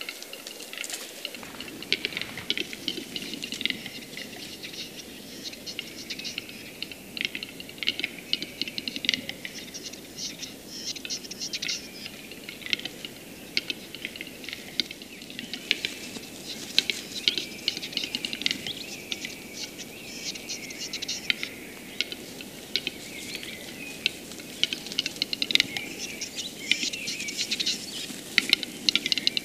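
Western capercaillie at the lek: displaying cocks giving their song of dense runs of dry clicks and scratchy strokes, several overlapping and busiest in the second half.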